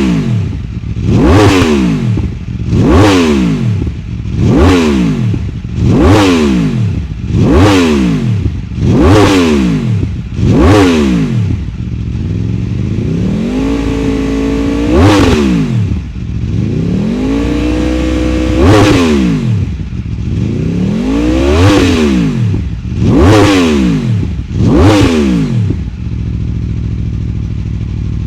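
Aprilia RSV4's V4 engine revving through an SC-Project SC1-R slip-on (titanium link pipe, carbon canister) with the dB killer removed. A run of quick throttle blips comes about every second and a half. In the middle there are two longer holds at higher revs, then more blips, and it settles to a steady idle near the end.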